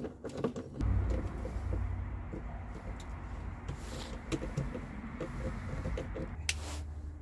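Light clicks and taps of a fuel line and its small fitting being worked onto a plastic diesel-heater fuel tank by hand, over a steady low rumble. A sharper knock comes about six and a half seconds in.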